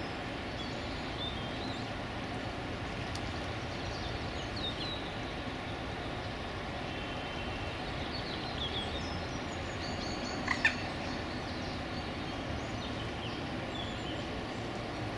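Small birds chirping and calling here and there over a steady low background rumble, with a brief, sharp, louder double sound about ten and a half seconds in.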